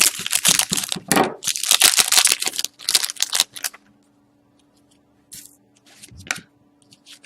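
A pack of Upper Deck SP Game Used hockey cards torn open, its wrapper crackling and crinkling for about three and a half seconds, then a few faint light clicks and rustles as the cards are handled.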